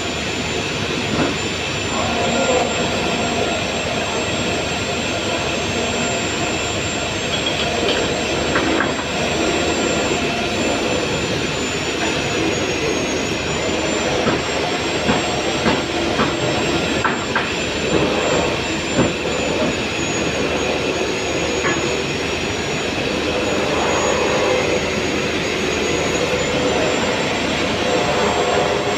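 Machinery running steadily and loudly, with a thin high whine that wavers slightly in pitch. A few short knocks and taps come in the middle.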